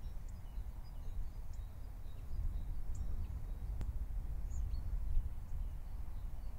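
Outdoor countryside ambience: small birds chirping in short, scattered notes over a steady low rumble, with a single sharp click a little under four seconds in.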